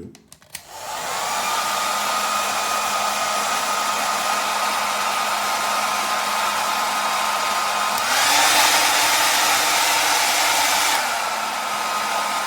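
Remington On the Go D1500 2000-watt travel hair dryer switched on with a click at its low setting (1) and spinning up to a steady blow with a whine. About eight seconds in it is switched to the high setting (2) and runs louder with a higher whine, then drops back to the lower level about three seconds later.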